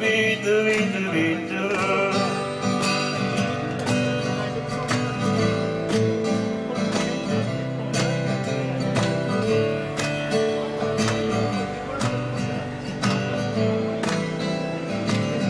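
Acoustic guitar strummed in a steady rhythm, an instrumental passage with no singing after the first couple of seconds.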